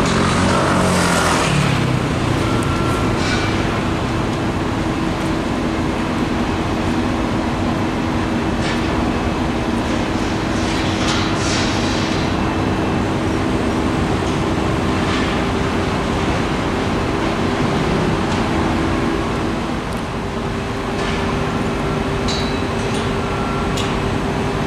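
Steady urban traffic and machinery hum: a continuous engine tone under a constant wash of noise, with a few brief hisses along the way.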